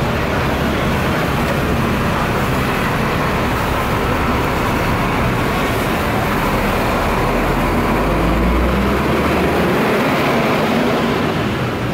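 Steady street traffic noise, with the heavier low rumble of a passing vehicle swelling about eight seconds in.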